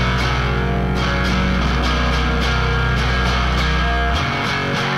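Background music with guitar and a steady beat; the deep bass drops out about four seconds in.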